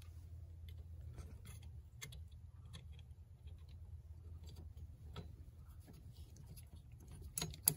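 Scattered small clicks and taps of a plastic heater control valve and its metal bracket being handled and fitted into place in a pickup's engine bay, over a low steady hum. A sharp double click near the end is the loudest sound.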